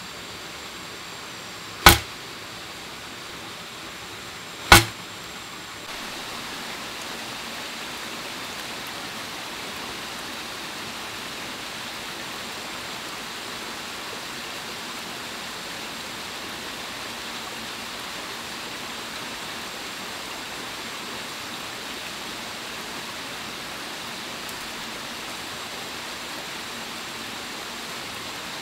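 Two sharp hits about three seconds apart as home-made crossbow bolts strike a banana-plant trunk, over the steady rush of a jungle stream that gets a little louder from about six seconds in.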